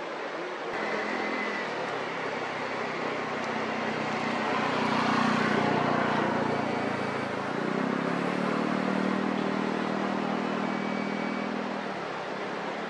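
Motor vehicle engine running as traffic passes, its hum swelling about five seconds in and again from about eight seconds, over a steady rushing background noise.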